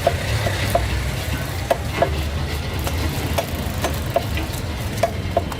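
A knife blade striking through a large snakehead (sol) fish on a cutting block: about nine sharp knocks at uneven spacing, each with a short ring, over a steady low rumble.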